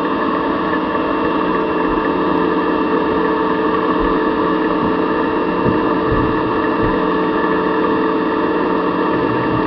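Small machine tool running at a moderate tapping speed, its motor and gearing giving a steady hum of several tones while it spins a 1/4-20 tap being brought up to a nylon blank to cut a worm gear.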